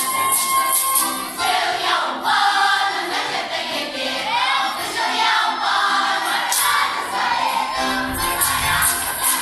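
Youth folk choir singing a Russian folk song with instrumental accompaniment. A held steady note gives way about a second in to the full choir singing, with percussion strokes marking the beat at times.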